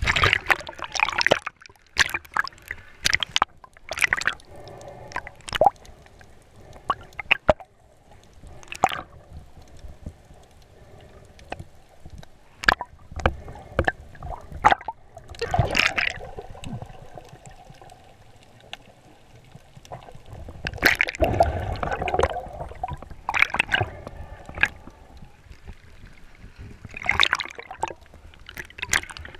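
Water splashing and gurgling against an action camera held at and just under the sea surface, with frequent sharp clicks and several longer bubbling bursts.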